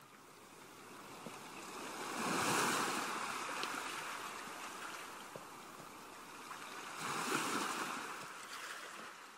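Ocean surf, waves breaking and washing in. It swells twice, about two and a half seconds in and again near the end, then fades.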